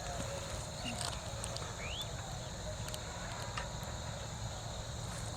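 Steady high-pitched drone of insects calling, over a low rumble, with a few small clicks and a short rising chirp about two seconds in.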